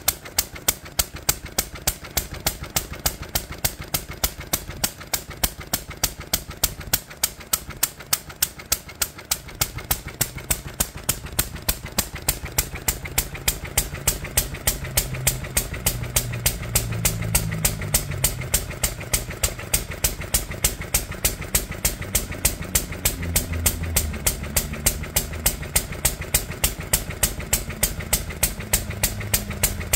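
1946 International Harvester Type LB 1½ hp single-cylinder stationary engine running steadily, each firing a sharp exhaust pop at about three beats a second.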